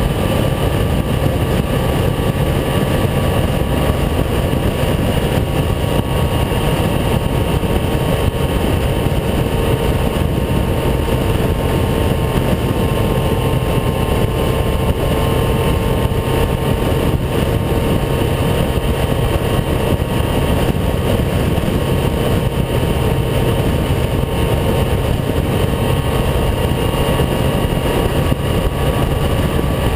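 Heavy wind rumbling over the microphone on a motorcycle riding at a steady highway speed in a strong, gusting crosswind. The engine holds a steady, unchanging note underneath.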